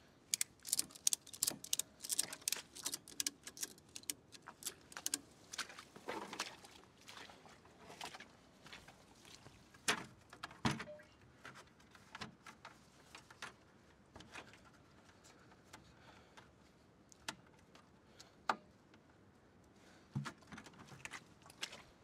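Tie-down strap being tightened around plastic sap buckets in a wooden pallet carryall: a quick run of clicks and rattles over the first few seconds, then scattered knocks and taps as the buckets and strap are handled.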